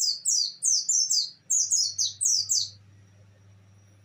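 White-eye (pleci) singing in the 'nembak' style: a fast run of sharp, high notes, each sliding downward, about four a second. The run breaks off a little before three seconds in.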